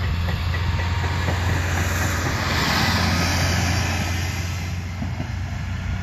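Japanese level-crossing warning bell ringing while the lamps flash, over train running noise that swells about two seconds in and fades away, with a steady low rumble underneath.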